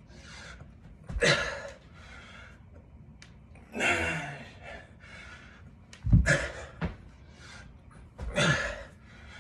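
A man breathing hard through dumbbell burpee curl-and-presses, with four forceful exhales about two seconds apart. Three of them come with a dull thump as he hits the floor or lands his jump.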